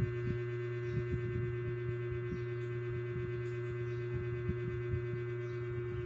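Steady electrical hum: a constant low drone with a steadier higher tone above it, and a few faint soft knocks.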